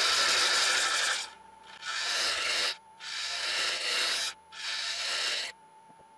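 Small carbide cutter on a hooked hollowing tool scraping the inside of a spinning sycamore vase on a wood lathe, undercutting under the rim. One long cut is followed by three shorter cuts of about a second each with brief pauses. The cutting stops about five and a half seconds in, leaving only a faint steady hum from the lathe.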